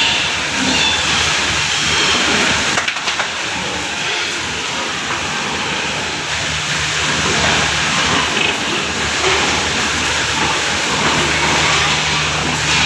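Steady hissing noise over a low, even machine hum, with a brief dip about three seconds in.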